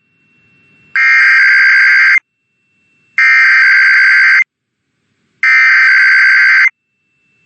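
Emergency Alert System SAME header: three loud bursts of buzzing digital data of about a second each, a second apart. They encode the alert that introduces an IPAWS Required Weekly Test.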